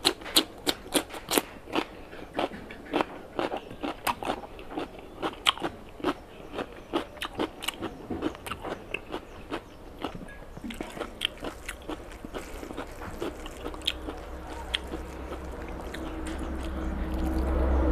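Crisp crunching and chewing of a raw cucumber slice, sharp crunches several a second for about the first ten seconds, then fewer and further apart. A low hum builds over the last few seconds.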